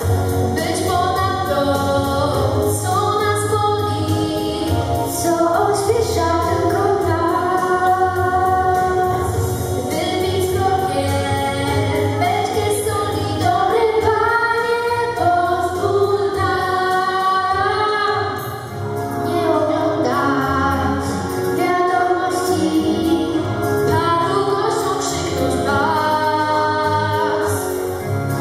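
Two girls singing a song together into handheld microphones over a backing track with a steady bass, with a brief drop in level about two-thirds of the way through.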